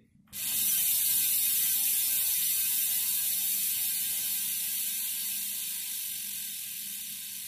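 Industry 9 Hydra freehub with 690 points of engagement buzzing as the hand-spun rear wheel coasts: a very loud ratcheting whir that starts about a third of a second in and slowly fades, its pitch falling as the wheel slows.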